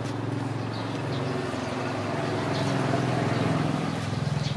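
Engine of a passing motor vehicle: a steady low hum that grows louder to a peak about three to four seconds in, then begins to ease off.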